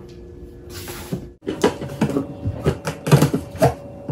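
Scissors slicing through packing tape on a cardboard carton, with the box being handled. From about a second and a half in there is a quick, irregular run of crackles and scrapes.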